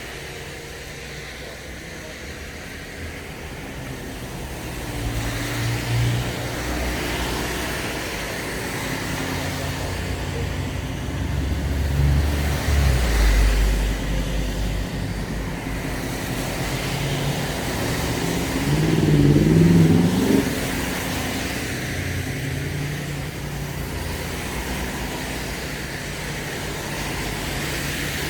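Road traffic passing on a street, with a louder vehicle going by about halfway through and an engine revving with a rising pitch about two-thirds of the way in.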